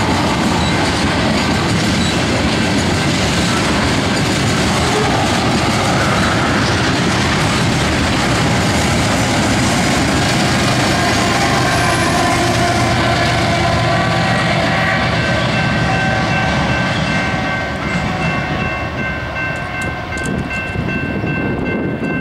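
Freight train of tank cars rolling past with a steady rumble and wheel clatter. The rear distributed-power locomotive, a BNSF GE ES44C4 diesel, passes about twelve seconds in. The noise eases after that as the end of the train goes by, and steady high-pitched tones come in for the last few seconds.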